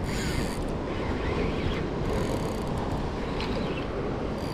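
Wind buffeting the microphone in a steady low rumble, over the wash of ocean surf against the rocks, with brief hissy swells twice.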